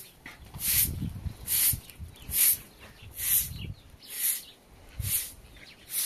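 Rhythmic rasping scrapes from a hand tool at work, one stroke a little under every second, with dull low thumps under some strokes.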